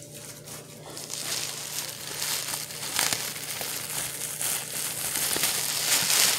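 Packing material being crinkled and rustled by hands unwrapping items in a cardboard box, a dense crackling that starts about a second in and carries on.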